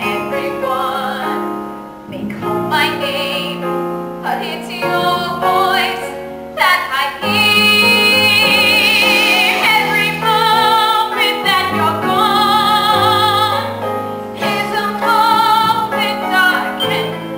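A woman singing a slow theatrical ballad with vibrato over piano accompaniment, swelling into longer, louder held notes about seven seconds in.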